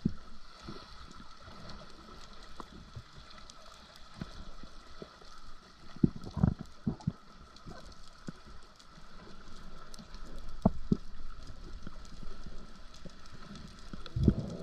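Underwater ambience through a camera housing: a faint steady crackle of clicks and hiss. Low thumps and gurgles come in a cluster about six to seven seconds in, once near eleven seconds, and again near the end.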